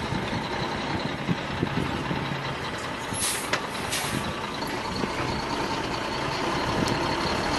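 Sand dump truck's engine running steadily, with two short hisses of air a little over three seconds in.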